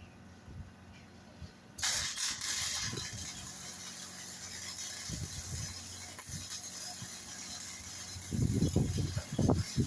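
MIG (short-arc) welding arc striking about two seconds in, then crackling and hissing steadily as a bead is run. A cluster of low thumps comes near the end.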